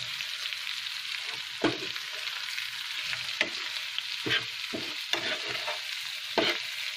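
A metal spoon stirring a chicken and onion fry in a nonstick frying pan, the food sizzling steadily in the hot oil. About five louder scrapes and knocks of the spoon against the pan come at irregular intervals as the spices are mixed through.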